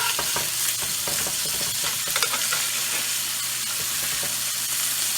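Ribeye steaks sizzling steadily in hot oil in a skillet, freshly flipped, with a few pops and crackles in the first couple of seconds.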